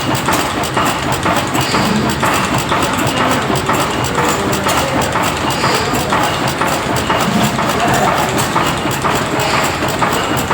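1910 MAN air-blast diesel engine running steadily, a rapid, even rhythm of knocks over a low engine hum.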